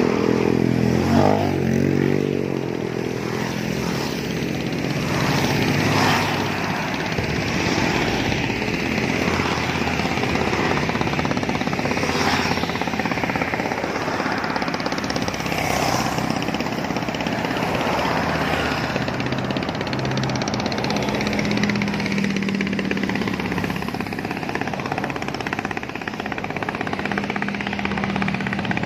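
Road traffic passing on a bridge: motorcycles and cars going by in a steady stream, with one vehicle passing close at the start, its engine pitch bending as it goes by.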